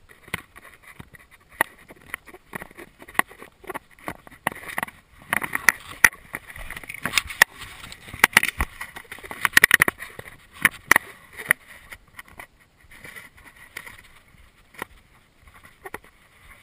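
Close handling noise: irregular clicks, taps and rustling from hands working a freshly landed ladyfish and fly line, busiest in the middle and sparser near the end.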